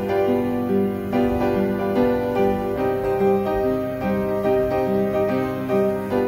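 Background instrumental music: a melody of evenly paced notes, changing a couple of times a second.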